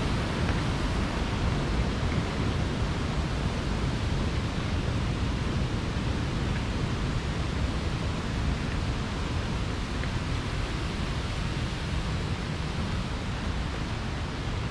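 Steady rushing of water from a waterfall, an even noise with no breaks.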